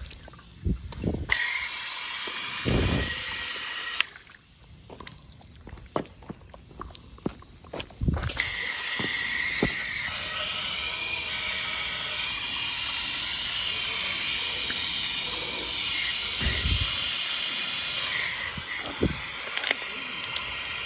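Garden hose spraying water onto a very hot, seized Honda GCP160 lawnmower engine. The spray makes a steady hiss that stops for a few seconds about four seconds in, then starts again and runs on, with a few low knocks in between.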